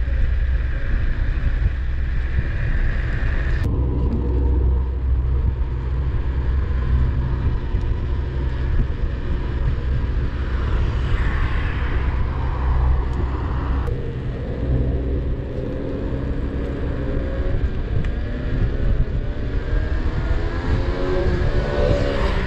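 Inokim OXO dual-motor electric scooter being ridden at speed: a steady low rumble of wind on the microphone and tyres on pavement, with a thin motor whine that slides up and down in pitch, most clearly near the end.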